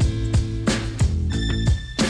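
Background music with a steady beat, a drum hit about three times a second.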